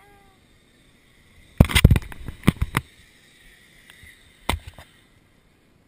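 A quick run of sharp knocks and clicks about a second and a half in, then one more knock near the end.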